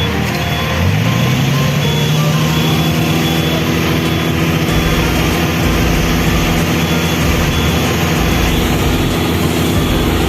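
A vehicle engine revs up about a second in, then holds a steady high pitch under load.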